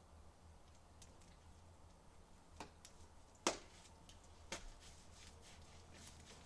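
Near silence over a faint low hum, broken by three short sharp clicks, the loudest about three and a half seconds in.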